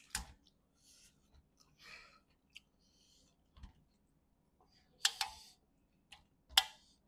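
Hands tearing apart curried chicken on a metal plate: a few sharp clicks and ticks, loudest near the start and about five and six and a half seconds in, with softer rustling sounds between.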